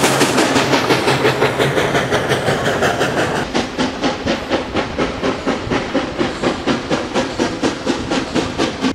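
Canadian Pacific steam locomotive working a train, its exhaust chuffing in a steady, even rhythm. About a third of the way through, the chuffing becomes somewhat softer and more distant.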